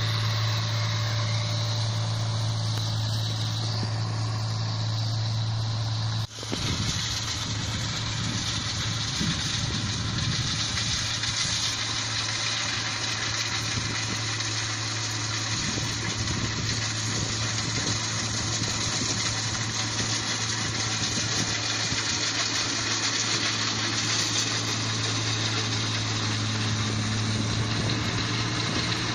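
Engine of a paddy harvesting machine running steadily with a strong low hum. About six seconds in the sound briefly drops out, then the engine runs on with more rattle and noise.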